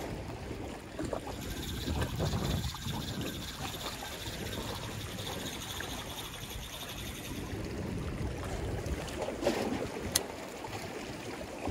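Sea water sloshing and lapping against concrete breakwater blocks, with wind buffeting the microphone; a single sharp click about ten seconds in.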